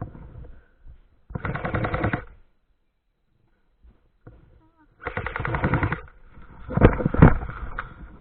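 Airsoft gun firing two full-auto bursts of about a second each, a rapid even rattle of shots, followed near the end by a few louder separate knocks.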